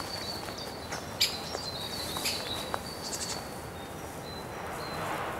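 Woodland birds calling with thin, high, drawn-out notes, broken by a few short sharp clicks or snaps, the loudest about a second in.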